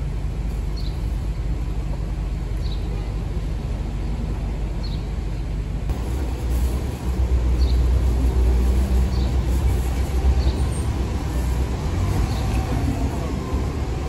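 Steady street-traffic rumble that swells louder in the middle, as if a heavy vehicle passes, with short high chirps every second or two.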